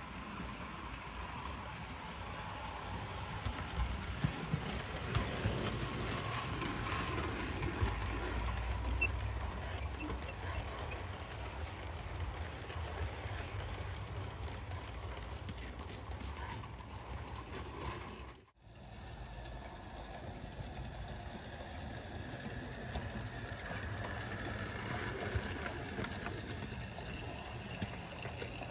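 Model trains running around a layout: a steady rumble of wheels on the track with motor hum and some clicks over the rails. About two-thirds of the way through the sound cuts out for a moment, then carries on.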